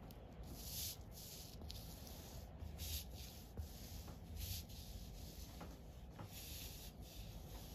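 A small hand tool scraping and pushing loose model-railway ballast grit along a board: a faint series of short, irregular scratchy strokes.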